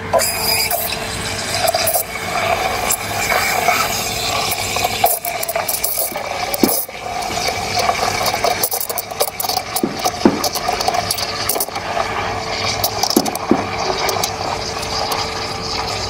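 Rocket Giotto Evoluzione V2 espresso machine's steam wand hissing steadily with its tip in milk in a stainless steel frothing pitcher, frothing and heating the milk for a latte.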